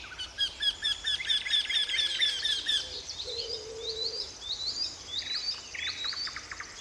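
Eurasian wryneck singing: a run of a dozen or so evenly repeated ringing notes, about five a second, lasting nearly three seconds. Other small birds follow with short rising notes and a quick rattle.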